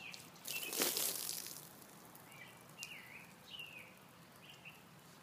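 Water poured from a large plastic cup splashing over a person's head and onto the ground: one short rush of splashing, about a second long, starting half a second in. Birds chirp a few times afterwards.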